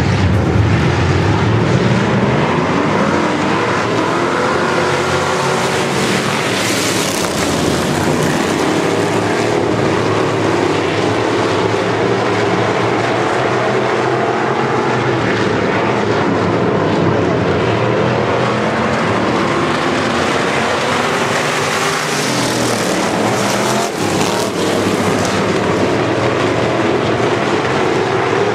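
A pack of hobby stock race cars running flat out on a dirt oval, many engines overlapping and rising and falling in pitch as they accelerate and lift through the turns. Loud and continuous, swelling as the pack comes nearest about seven seconds in and again just past twenty seconds.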